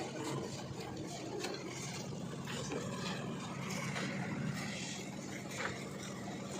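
Construction-site machinery engine, the kind that drives a concrete mixer or material lift, running steadily with a low drone. A few short clanks sound over it.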